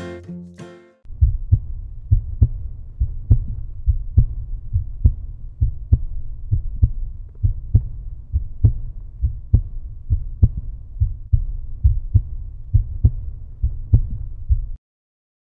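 Outro music: a short string phrase, then from about a second in a deep bass beat pulsing about twice a second like a heartbeat, stopping shortly before the end.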